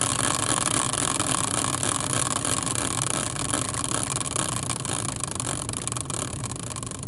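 Tabletop prize wheel spinning, its rim pegs clicking rapidly past the pointer in a continuous rattle that slowly fades as the wheel spins down.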